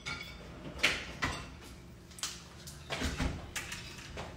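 A few scattered knocks and clunks of things being handled in a kitchen, with a duller thump about three seconds in.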